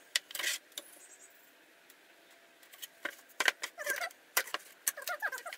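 Clicks and knocks of a plywood pattern and a steel rule being handled and set down on a metal-topped workbench, busiest in the second half, with a few short high squeaky whines near the end.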